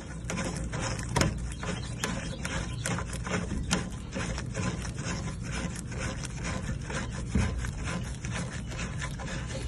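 Plastic union nut on a pool heat pump's water inlet being screwed on and tightened by hand: irregular scraping and clicking of the gloved hand and the plastic threads as it is turned, several times a second.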